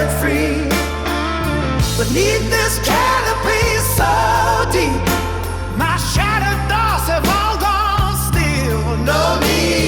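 Music: a song with a sung melody gliding over held bass notes.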